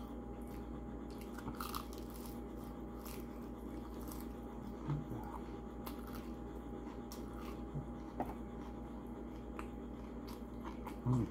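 Close-up chewing and biting of a crispy breaded fried chicken wing, with scattered small crunches and mouth clicks over a faint steady hum.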